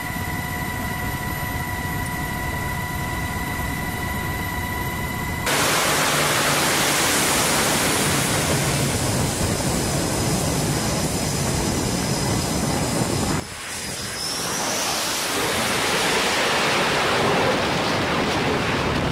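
Military aircraft engines running on a carrier flight deck. For about five seconds there is a steady high whine. It changes suddenly to a louder, even rush of engine noise, which dips briefly near the end and builds again with a rising jet whine.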